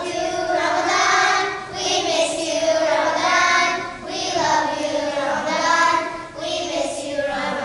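A group of children singing together in unison, in phrases of a couple of seconds each with short breaths between them.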